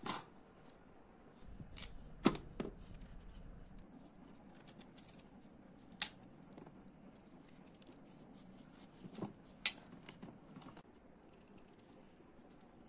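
Kitchen knives peeling the skin off raw butternut squash wedges: soft scraping and cutting, with scattered sharp clicks and taps, a few louder ones about two, six and ten seconds in.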